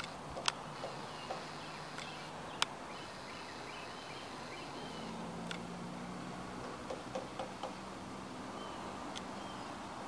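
Outdoor ambience: faint, short bird chirps now and then over a steady low hum. Two sharp clicks in the first three seconds are the loudest sounds, with a few softer knocks about seven seconds in.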